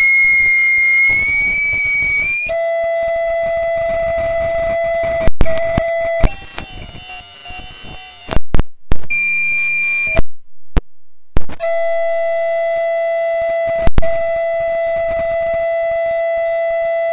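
Audio feedback howl, a loud electronic tone with overtones. It wavers in pitch for the first couple of seconds, then settles into a steady tone. The tone is broken by sharp clicks, jumps in pitch and a few brief dropouts around the middle.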